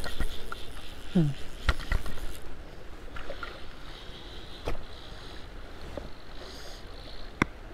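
Steady noise of a shallow, rocky river, with a few sharp knocks from handling the fly rod and reel close to the microphone.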